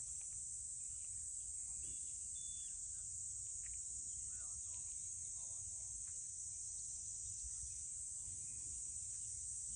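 Steady high-pitched chorus of insects in the grass and trees, with a low rumble underneath.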